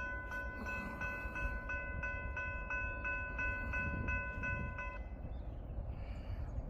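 Railroad grade-crossing warning bell ringing about three strikes a second, then stopping about five seconds in, with a low rumble underneath.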